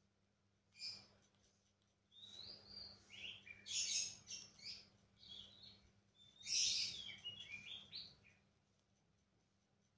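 Lovebird chicks giving high, raspy begging chirps, the call chicks make while being spoon-fed. A short burst comes about a second in, then a run of chirps until the last couple of seconds, which are quiet.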